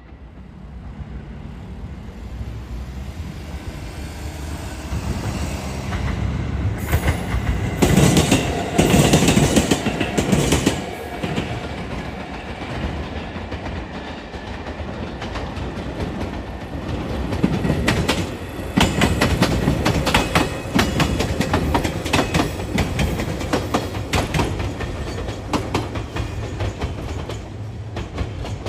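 A train running past, its wheels clacking over rail joints in runs of rapid clicks. The sound builds over the first several seconds and is loudest twice, about eight to eleven and eighteen to twenty-four seconds in.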